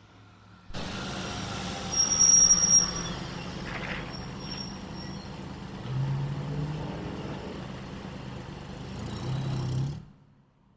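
A motor vehicle running, picked up by a doorbell camera's microphone, with a high-pitched squeal about two seconds in as the loudest moment. The sound starts and cuts off abruptly.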